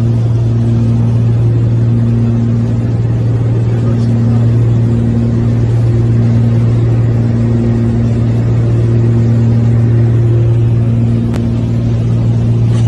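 Single-engine light aircraft's piston engine and propeller droning steadily, heard from inside the cockpit. The low drone holds steady while a higher hum above it fades in and out.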